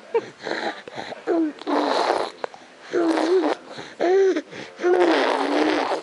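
A baby making noises: repeated rough, breathy vocal bursts, some with short high squeals or coos that bend in pitch, about one burst a second.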